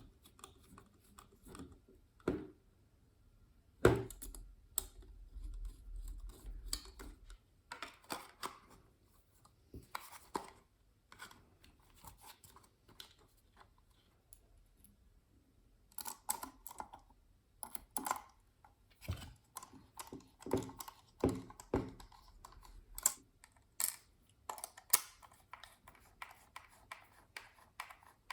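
Irregular small clicks, taps and scrapes of objects being handled close by, with a sharp knock about four seconds in and a low rumble for a few seconds after it.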